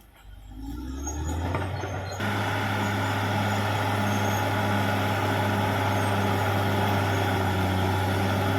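Caterpillar D6R XL bulldozer's diesel engine: the revs climb out of a lull over the first second or so, then about two seconds in the sound jumps abruptly to a louder, steady engine drone that holds.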